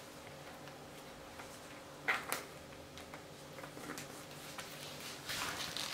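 Ankle-strap buckle of a high-heeled sandal being unfastened by hand: a couple of small sharp clicks about two seconds in, a few fainter ticks later, and soft rustling near the end, over a faint steady room hum.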